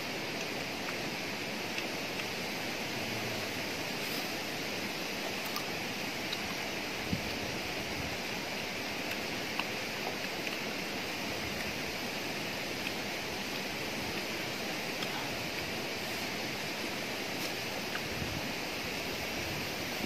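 Steady outdoor background noise, an even rushing hiss with nothing pitched in it, broken by a couple of faint small clicks partway through.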